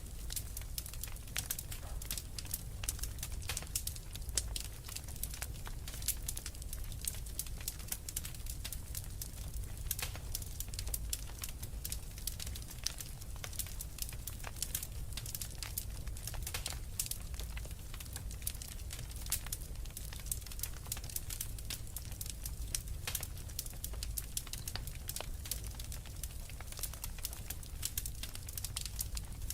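Wood fire crackling steadily, with dense, irregular sharp pops and snaps over a low, even rumble.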